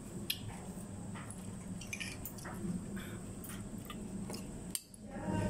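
Faint eating sounds: chewing close to the microphone, with a few small clicks.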